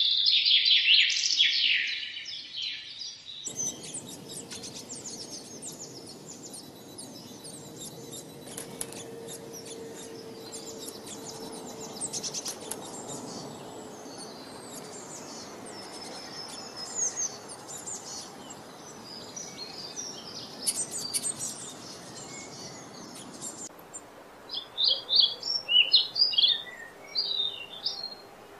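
Small birds chirping and twittering in quick, high calls. The sound changes abruptly about 3.5 s in and again near 24 s, as if separate recordings are spliced together. The middle stretch has a steady hiss under the chirps.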